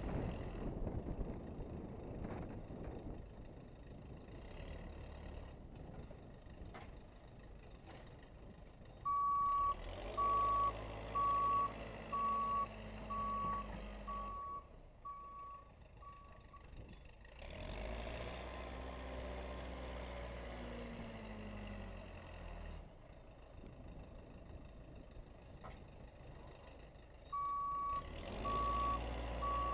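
Case 580C backhoe's engine running as it pushes snow, its note rising and falling past the halfway point as it works. Its backup alarm beeps steadily at a little over one beep a second while it reverses, from about a third of the way in for some eight seconds, and again near the end.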